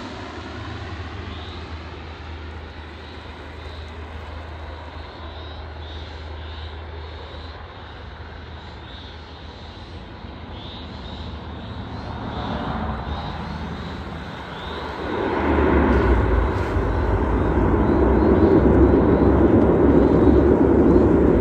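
Saab 340 twin turboprop engines heard at a distance as the airliner lands. The engine noise is moderate and steady at first, then swells sharply about fifteen seconds in and stays loud.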